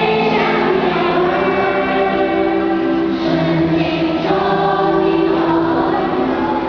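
A choir singing sustained, held notes in several voice parts.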